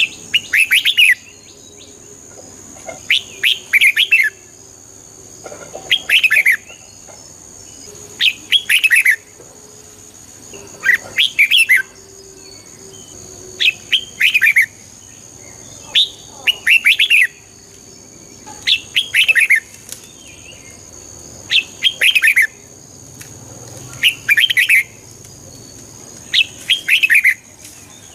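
Red-whiskered bulbul singing, a short warbled phrase about a second long repeated about every two and a half seconds. A steady high thin tone runs underneath.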